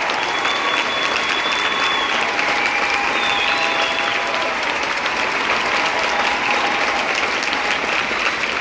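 Large crowd applauding steadily without a break.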